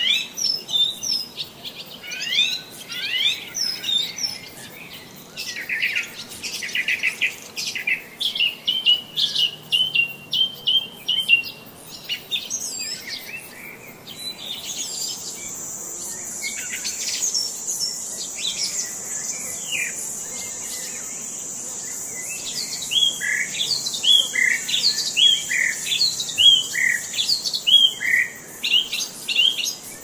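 Wild songbirds chirping and singing, short calls and phrases following one another throughout, with a steady high-pitched buzz joining about halfway through and continuing under the calls.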